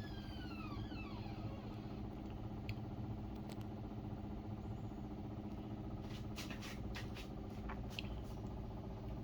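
Samsung WA50R5200AW top-load washing machine running with a steady motor hum. A whine falls in pitch over the first second and a half as the drum slows, and a few light clicks come later.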